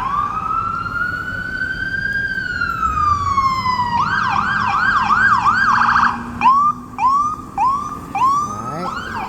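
Ambulance siren passing close by, cycling through its modes: one slow wail rising and falling over about four seconds, then a fast yelp for about two seconds, then a series of short rising whoops before going back to a fast warble at the end.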